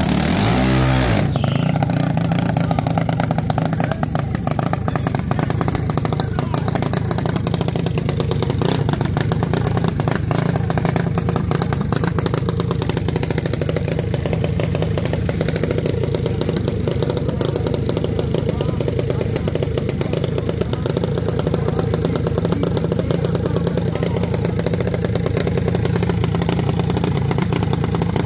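Junior dragster engine running steadily at a constant speed, a rapid even pulsing with no revving. A short noisy burst with a falling sweep comes at the very start.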